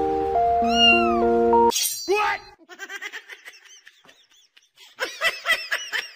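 Background music for about the first second and a half, then a domestic cat meowing: one clear meow, a stretch of soft short mews, and near the end a quick run of louder short mews.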